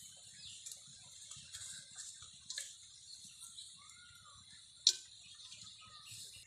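Hands and legs working through shallow muddy pond water and mud: small splashes, drips and squelches, with one sharp wet slap just before five seconds in, over a steady high-pitched drone in the background.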